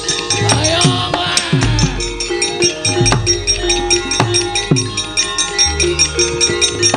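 Javanese gamelan playing quick fight music. Kendhang hand drums strike with a bending, dropping pitch over ringing bronze metallophones, and sharp clacks from the dalang's keprak come several times a second.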